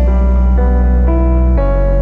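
Background music: sustained keyboard chords over a steady deep bass, the chord changing about a second and a half in.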